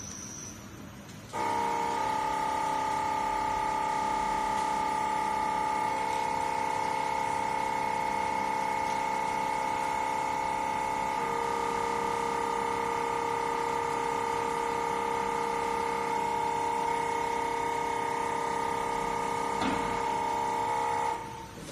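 CR708 common rail injector test bench running a low-load injector test stage: a steady mechanical hum with a high whine. It starts about a second in, changes pitch slightly about halfway, and stops near the end.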